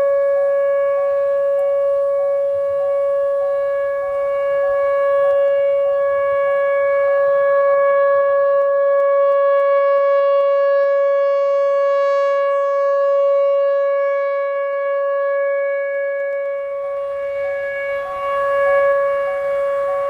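Whelen Vortex R4 electronic rotating tornado siren sounding a steady, unwavering tone. It swells and eases slowly in loudness as the head turns.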